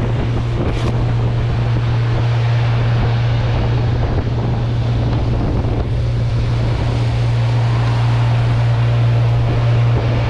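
Boat motor running at a steady pitch, with water rushing past the hull and wind on the microphone.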